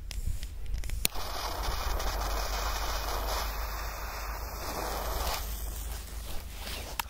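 Butane jet-torch lighter clicking alight about a second in and hissing steadily for about four seconds while it lights a firecracker fuse, then stopping; a faint rumble of wind on the microphone beneath.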